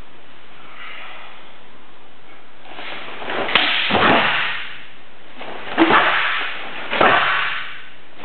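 Karate gi cloth snapping sharply as the kata Kanku Sho is performed with fast techniques. There are four sharp snaps, each with a short swish, starting about three seconds in; the first two come close together.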